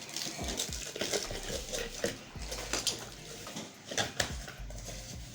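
Light clinks, taps and scrapes of a spoon against a mixing bowl while dry ingredients are spooned in, scattered irregularly with a few sharper knocks about four seconds in.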